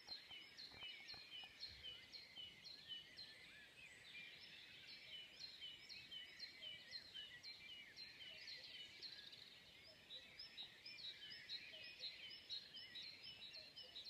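Faint dawn chorus of songbirds: many birds singing together, with quick high chirping notes repeated several times a second.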